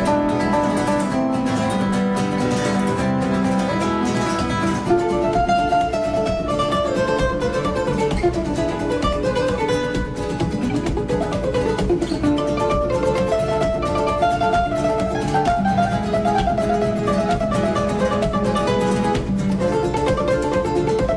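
Background music: plucked acoustic guitar playing a melody in a flamenco-like style.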